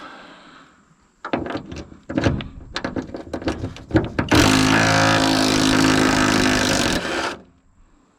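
Irregular metal clanks and rattles of tools working on the truck's hood hinges, then a loud, steady mechanical whir of about three seconds that stops abruptly.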